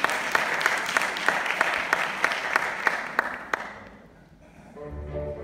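Audience applauding, with a few sharp single claps standing out, dying away about four seconds in. Music with low strings starts near the end.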